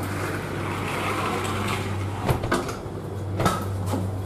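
Inside a standing passenger train carriage's vestibule: a steady low hum, with a rushing noise over the first two seconds and then a few sharp clicks and knocks.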